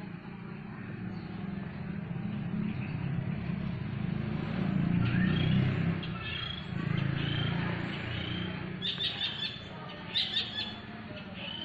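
Small birds chirping in short repeated calls, with two quick flurries of chirps near the end, over a steady low rumble.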